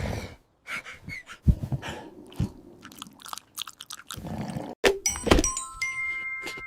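Cartoon slapstick sound effects: a scatter of knocks, thuds and crunches, densest about five seconds in, followed by a few steady high tones held near the end.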